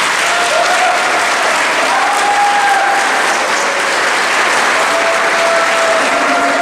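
Audience applauding steadily, a big round of applause for the award recipients.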